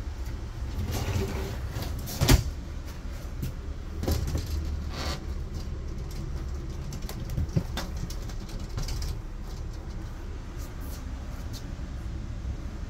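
Handling and walking noise inside a motorhome: a steady low rumble, with one sharp knock about two seconds in and a few lighter knocks and clicks after it.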